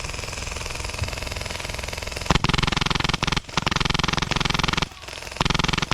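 Airsoft gun firing three bursts of full-auto fire close to the microphone, the first starting about two seconds in, each lasting around a second.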